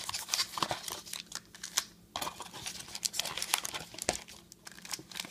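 Foil-wrapped trading-card packs crinkling and rustling as they are pulled out of their cardboard box and set down, with scattered short crackles and light taps.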